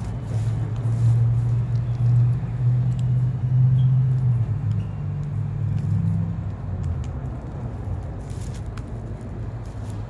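A low engine hum, loudest over the first few seconds and easing off after about six seconds, with a few faint clicks and crinkles over it.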